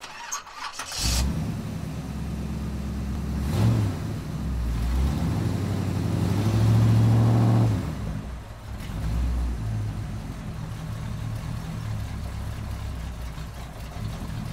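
Tractor engine starting about a second in and running with a low hum. It revs up near the middle, then drops back to a steady run.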